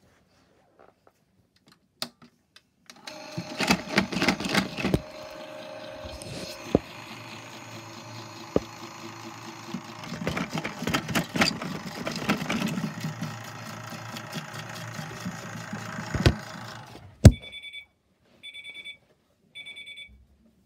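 Miele washing machine rattling and knocking with its drum turning as it is shaken by hand, for about fourteen seconds. Then a loud thud as the camera is knocked over, followed by three short electronic beeps.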